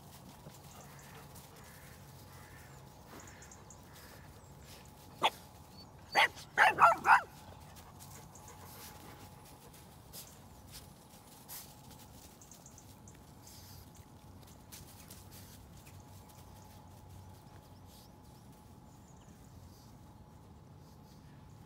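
A dog barks: one short bark about five seconds in, then a quick run of four or five sharp barks about a second later.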